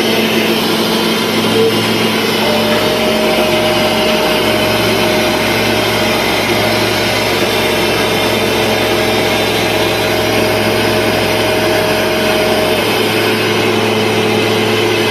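Steady drone of an airliner in flight heard inside the lavatory. A steady whine and a low hum join in about two and a half seconds in and stop about ten seconds later.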